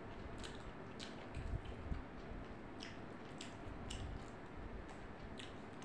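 Faint close-miked chewing and wet mouth clicks of a person eating by hand, with scattered short clicks and a few soft low thumps in the first two seconds.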